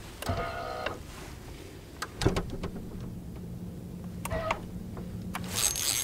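Spinning reel whirring as line is cranked in, in short spells about half a second in and again around four seconds in, with a few sharp clicks.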